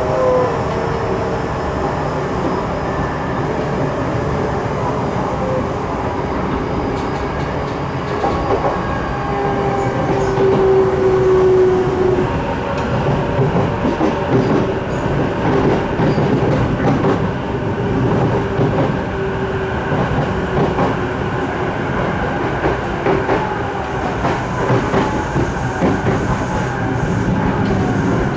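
Sotetsu 12000 series electric train running, heard from on board: steady wheel-and-rail rumble with repeated rail-joint clatter and a faint whine from the traction motors.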